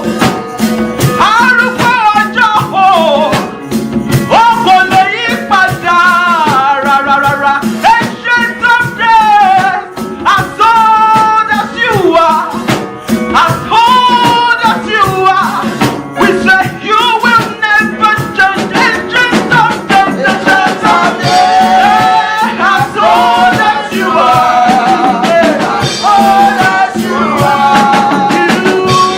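Live church worship music: voices singing a melody over band accompaniment with a steady beat and shaker-like percussion.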